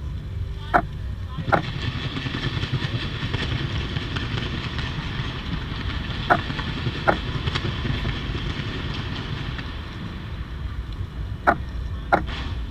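Fireworks going off from the skyscraper overhead in a continuous dense rumble and crackle. A DSLR camera shutter close by clicks loudly in three pairs, about a second in, around six seconds in and near the end.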